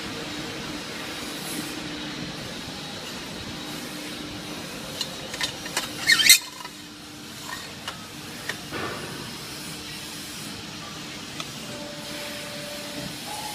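CNC pipe bending machine and factory floor: a steady low hum, with a cluster of sharp clicks and knocks about five to six seconds in, ending in a short loud hiss. A fainter hiss follows about three seconds later.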